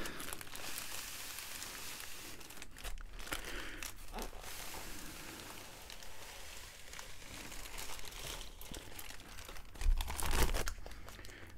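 Plastic poly mailer bag and inflated air-column packaging crinkling and rustling as the rolled canvas is handled and slid out of the mailer. About ten seconds in there is a louder low bump.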